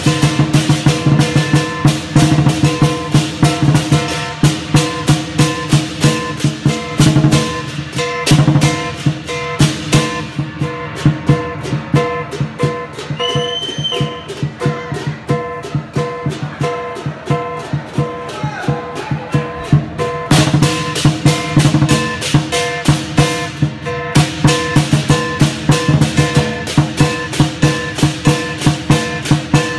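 Chinese lion dance percussion, a drum with cymbals and gong, beating a steady, loud rhythm of repeated strikes. The high crashes thin out in the middle and come back in full about twenty seconds in.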